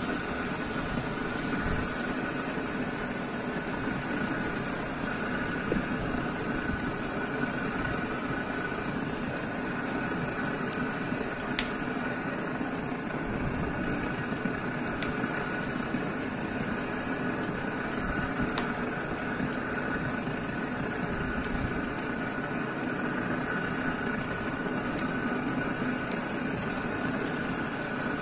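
Marinated chicken pieces sizzling steadily in hot oil in a pan as they are lightly browned, with a few sharp clicks of metal tongs against the pan.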